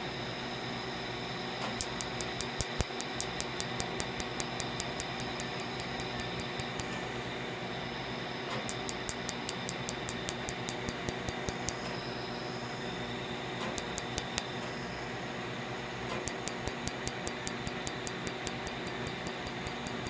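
Q-switched Quanta tattoo-removal laser firing sharp snapping pulses, several a second, as the handpiece passes over black tattoo ink. The pulses come in runs of a few seconds with short pauses between, over a steady background hum.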